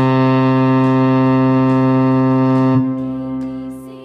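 Ship's horn giving one long, steady low blast that drops away about three seconds in and fades out.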